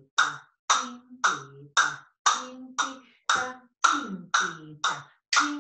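Flamenco castanets clicking in a steady rhythm, about two sharp strokes a second, each ringing briefly. The strokes are made in turn with the hand and by clicking the castanet against the forearm, shoulder and hip.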